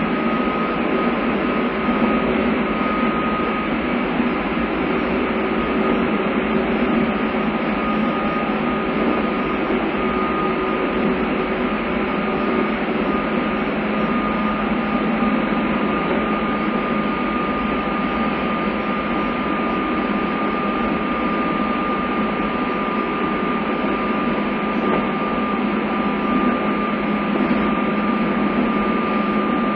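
Inside a JR East 201 series electric commuter train running steadily at speed: continuous running noise from the car, with a thin steady high tone over it.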